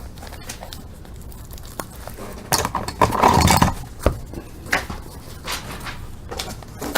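A sealed hockey card box being opened by hand: scattered clicks and taps of cardboard and wrapper, with a loud rustling tear about two and a half seconds in that lasts about a second.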